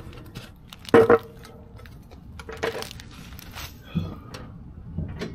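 Metal hand tools clinking together as a bolt size is being found: a loud double clank about a second in that rings briefly, another ringing clink near the middle, then lighter knocks.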